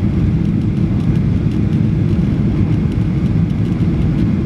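Steady cabin noise inside a Boeing 737-800 on final approach with its flaps extended: the deep rumble of the engines and airflow, heard from a window seat.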